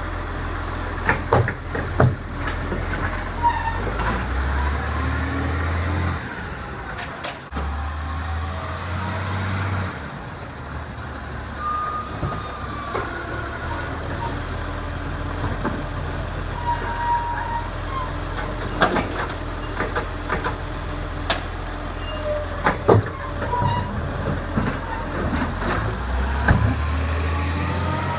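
Side-loading recycling garbage truck running at the kerb while its automated arm lifts and tips wheelie bins, with scattered knocks and clatters of the bins and their contents. There are changes in the engine note and short air-brake hisses.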